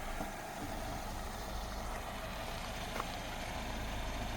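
Car engine idling steadily just after being started, a low even hum.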